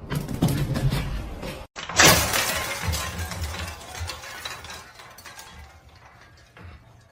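A sudden loud crash of something falling and breaking about two seconds in, dying away with scattered clinks and rattles, after a burst of clattering at the start.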